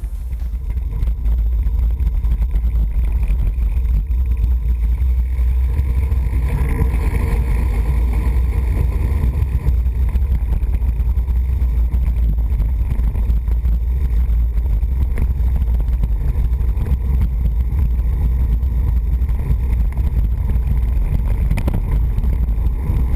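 Wind buffeting the microphone of a camera on a bicycle rolling along a paved mountain road: a loud, steady low rumble with road noise.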